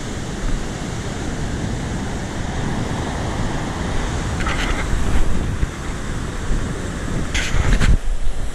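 Ocean surf washing on the beach with wind buffeting the microphone: a steady rushing that rises and falls, with two short brighter hissing bursts about halfway and near the end.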